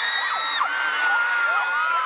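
Concert crowd of fans screaming and cheering, many high-pitched shrieks rising and falling over one another.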